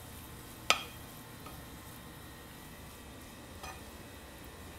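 Wooden spatula stirring diced chicken and vegetables in a nonstick frying pan over a faint sizzle, with one sharp knock of the spatula on the pan under a second in and a softer one later.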